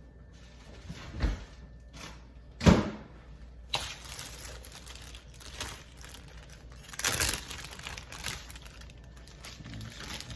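Handling sounds from preparing a dog's raw-food meal: a few sharp knocks and clunks, the loudest about two and a half seconds in, with rustling between them.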